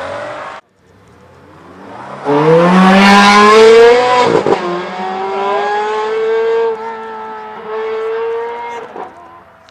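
Ferrari V8 sports car accelerating hard: a short rising rev cuts off abruptly in the first second, then a loud rev climbs for about two seconds, drops at an upshift about four seconds in and pulls on in the next gear, with one more burst of throttle before it fades out near the end.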